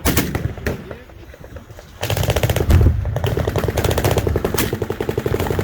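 Machine-gun fire: a few separate shots, then from about two seconds in a long, rapid burst of automatic fire that continues throughout.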